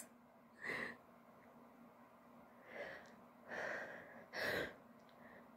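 A woman's short, quiet breaths through a stuffy, allergy-congested nose, four in all: one early, then three closer together.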